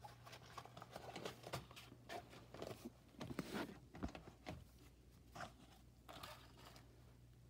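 Faint rustling and scattered light clicks of popsicle sticks and number cards being handled in a fabric pocket chart, busiest about three to four and a half seconds in, over a low steady hum.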